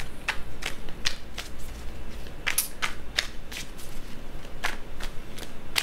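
Tarot cards being shuffled and handled: a string of irregular soft clicks and snaps, about three a second.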